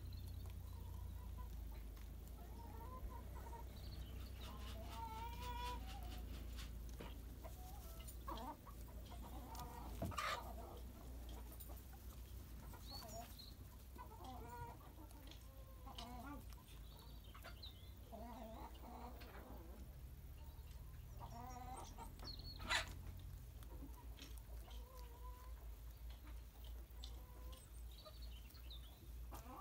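Hens clucking and giving short calls on and off, with a steady low rumble underneath. There are two sharp taps, one about ten seconds in and a louder one about two-thirds of the way through.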